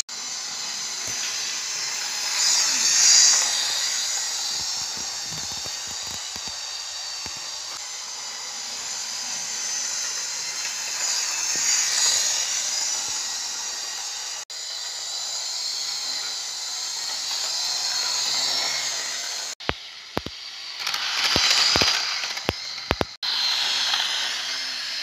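Small electric motors of model Class 37 diesel locomotives whirring, with their wheels running over the track; the whirr swells as the locomotives pass close, about three seconds in, around twelve seconds and again near the end. A few sharp clicks sound in the last part.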